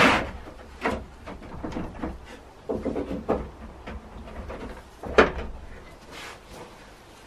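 A small wooden barn door faced with corrugated metal knocking and clunking as it is opened: a handful of separate sharp knocks, the loudest about five seconds in.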